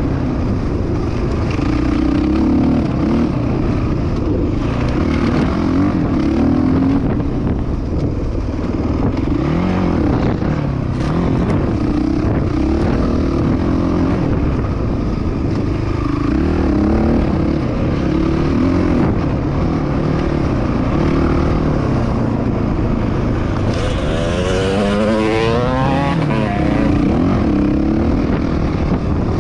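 Dirt bike engine running under way, its pitch rising and falling with the throttle, with one sharp rev up and back down near the end.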